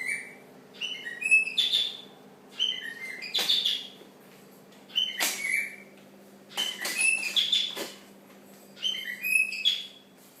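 Cockatiels chirping and whistling in short repeated bursts, one every second or two.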